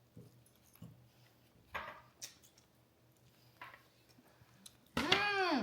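A person eating a last bite: faint scattered clicks and small noises of chewing and cutlery. Near the end comes a short, loud pitched sound that rises and falls in pitch.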